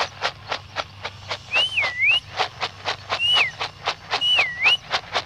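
A person whistling to call a horse: three whistles, two that swoop down and back up and a short falling one between them. A rapid, even ticking runs underneath throughout.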